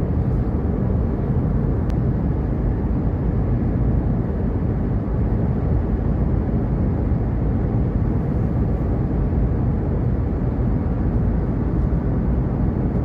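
Car driving at steady speed on a sealed road, heard from inside the cabin: an even, low road-and-engine rumble.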